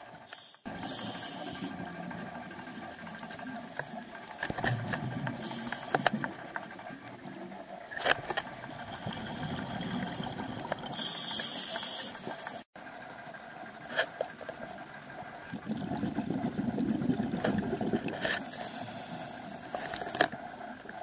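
Scuba diver's regulator breathing heard underwater through the camera housing: a steady hiss with four bursts of exhaled bubbles about every five to seven seconds, a low rush of air between them, and a few sharp knocks.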